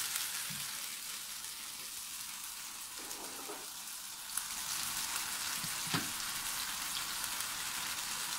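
Chicken, fish cake and chillies sizzling steadily in oil and oyster sauce in a non-stick wok, with two short knocks about four and six seconds in.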